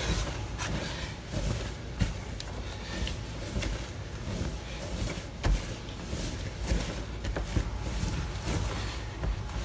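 Bread dough being kneaded by hand: soft, irregular thumps and rubbing, with a few sharper knocks scattered through.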